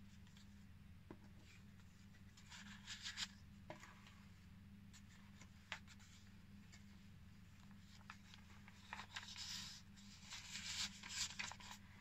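Paper pages and envelopes of a junk journal being handled and turned, soft rustling in two short bursts, about three seconds in and again around nine to eleven seconds in, with a few light taps between.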